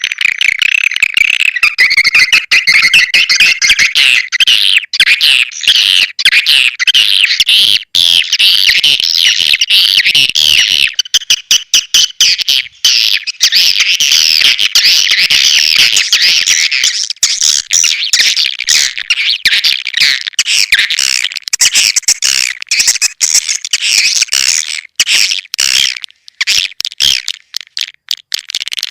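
Swiftlet call lure recording: a dense chatter of many overlapping high, rapid swiftlet chirps and twitters. It becomes choppier, with more brief gaps, near the end. It is a call sound played to draw swiftlets into a nesting house.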